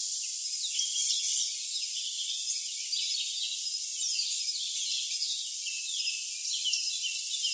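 Morning songbirds chirping many quick, downward-sliding notes over a steady high hiss of crickets. The sound is thin and high, with no low end at all.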